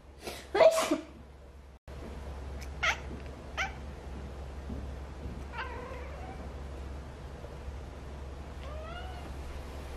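A cat giving short meows, including a rising call near the end, with a loud sudden burst about half a second in and two short sharp sounds about three seconds in.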